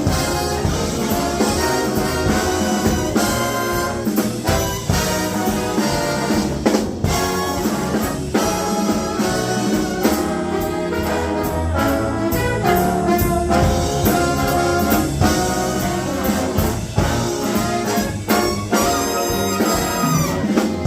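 Big band playing an instrumental passage of a jazz tune, the brass section (trumpets and trombones) leading over the rhythm section's drums.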